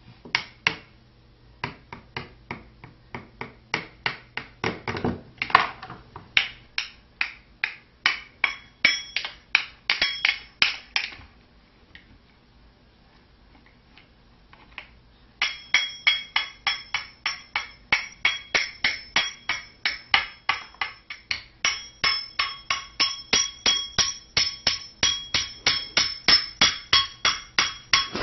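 A baby banging a hard toy, rapid sharp strikes about four a second with a ringing tone behind them. The banging stops for a few seconds midway, then resumes.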